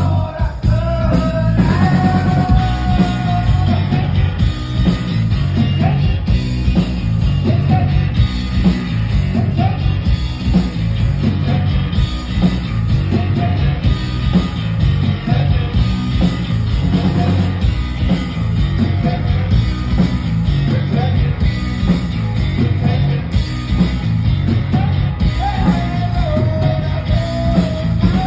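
A rock band playing live and loud: electric guitar, bass guitar and drums, with a man singing.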